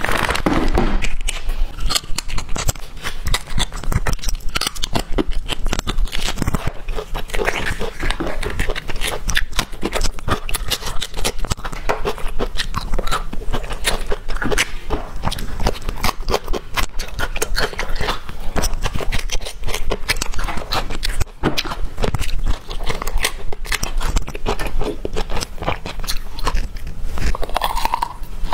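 Close-miked handling of a whole bamboo shoot: a plastic food bag crinkling as it is opened, then the shoot's outer sheath being peeled and torn away in a dense run of clicks and crackles. Near the end comes a crunchy bite into the peeled shoot.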